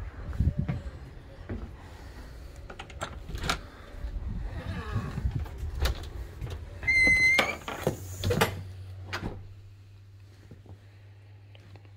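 A house front door being opened and gone through: handle and latch clicks and knocks, and a brief high-pitched squeal about seven seconds in. A steady low hum comes in about eight seconds in.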